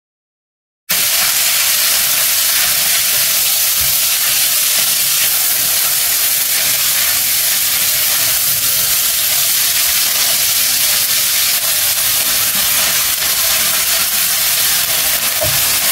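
Vegetables and scrambled egg sizzling in hot oil in a large pan as they are fried and stirred: a steady, loud hiss that starts suddenly about a second in.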